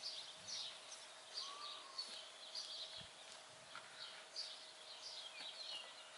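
Small birds chirping faintly, many short calls overlapping, over a faint steady hum.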